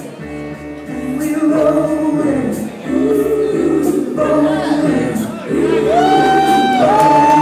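A song sung by several voices together. Near the end a single voice holds a long high note, stepping up once partway through.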